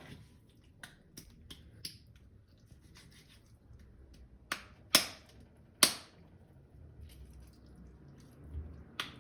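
A knife chopping into bone-in chicken thigh held in the hand. A few light cuts come first, then three hard, sharp chops around the middle.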